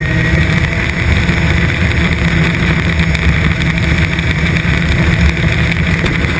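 Dirt-track race car engine running steadily at speed, heard through a camera mounted on the car itself.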